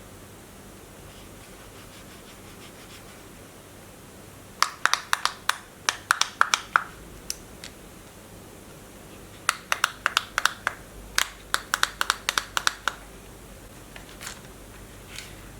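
Handling noise: two runs of quick, sharp clicks and scratches, the first about four and a half seconds in and the second about nine and a half seconds in, over quiet room tone.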